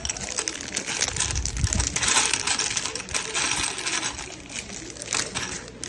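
Small plastic LEGO pieces clattering and rattling against each other, with the crinkle of a plastic parts bag being handled, densest about two to three seconds in.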